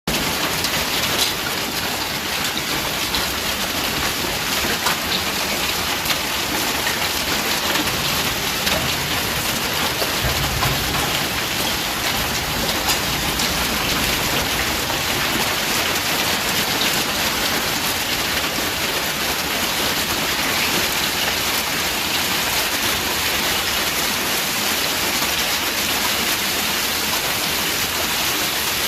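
Hail and heavy rain pelting down in a steady, dense patter, with many sharp individual stone impacts standing out. A brief low rumble about ten seconds in.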